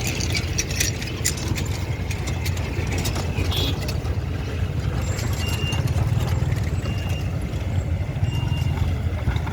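Heavy truck's diesel engine running with a steady low rumble, with a cluster of sharp clicks and knocks over the first few seconds. Three short high beeps come in the second half, about a second and a half apart.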